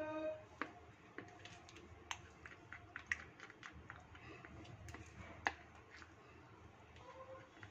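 Irregular light clicks and taps, a few a second, over a faint background.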